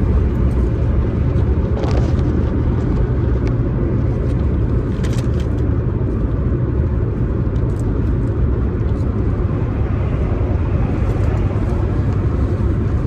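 Steady low rumble of a car driving, road and engine noise without a break, with a few faint clicks.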